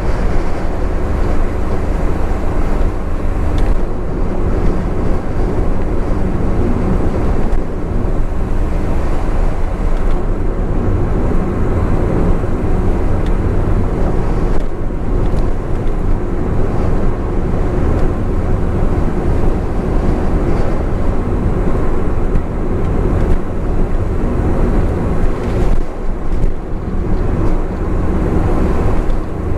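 Steady driving noise of a Honda S660 at expressway speed: tyre and road roar with wind noise over the small engine's even drone.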